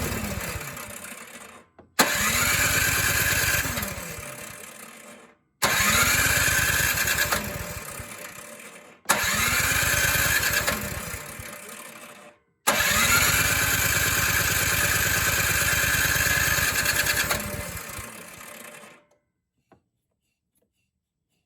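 2012 Troy-Bilt 21-inch snow blower's small engine firing on starting fluid and dying, five times over: each time it catches abruptly, revs up, then slows and dies within a few seconds, the last run lasting longest. It runs only on the starting fluid because the carburetor's main jet is clogged.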